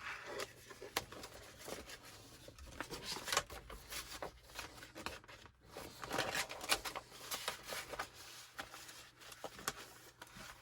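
Plastic CD case cover being handled and fitted back into place, with faint irregular clicks and rattles of plastic.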